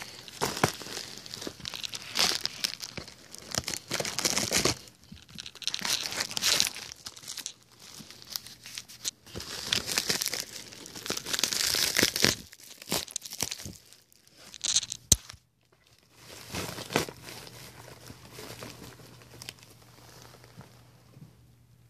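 A mailing envelope being torn open by hand, with paper and packaging crinkling in long spells. One sharp click comes about fifteen seconds in, and the handling grows quieter near the end.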